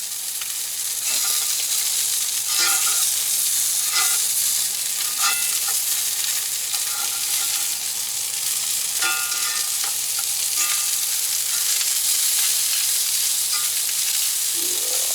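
Skin-on striped bass fillet sizzling steadily in an oiled frying pan, the skin crisping, with a few brief sharper sounds over the hiss.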